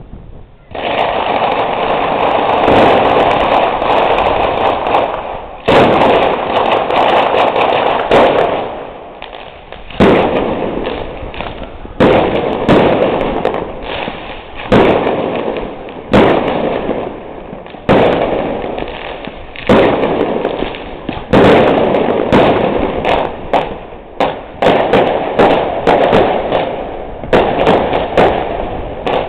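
Fireworks display: a dense barrage of bangs and crackling starts about a second in, with a fresh loud salvo every two seconds or so, each one dying away before the next.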